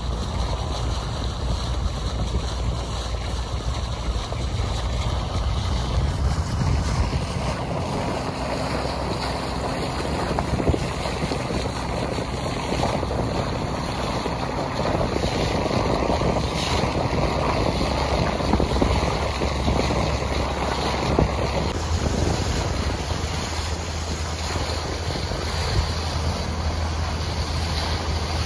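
Fishing boat's engine running steadily under way, a constant low hum, with wind buffeting the microphone and water rushing past the hull.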